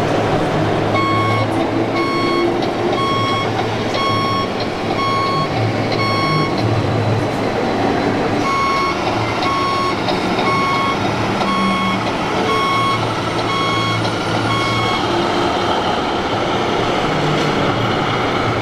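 RC model truck's reversing beeper beeping about once a second, in two runs of six or seven beeps with a short pause between, over steady background noise.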